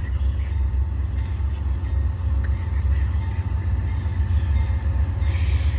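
A train rolling past, a steady low rumble.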